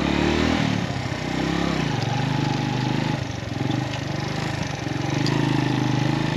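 Suzuki GS150 motorcycle's single-cylinder four-stroke engine running under load on a rough uphill dirt track, its note rising and falling with the throttle.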